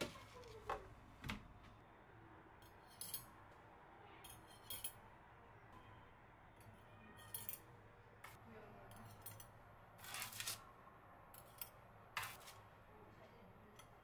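Metal spatula lifting freshly baked cookies off a parchment-lined baking sheet onto a wire cooling rack: short, quiet scrapes and clinks of metal, a second or two apart.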